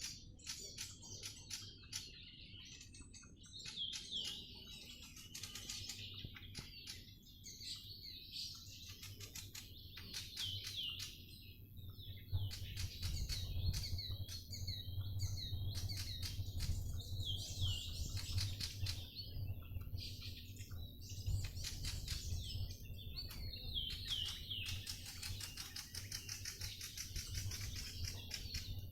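Songbirds chirping and singing in repeated short phrases of high, quick notes, some falling in pitch. A low rumble underlies the birdsong, louder from about halfway on.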